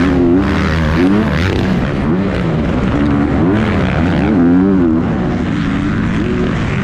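Motocross dirt bike engine racing under hard throttle, heard close from the rider's helmet, its revs climbing and dropping about once a second through gear changes and turns, with other bikes running around it.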